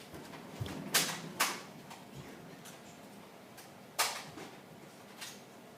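Sharp plastic clacks and knocks from Nerf blaster play: two close together about a second in, a louder one near four seconds, and a fainter one near the end.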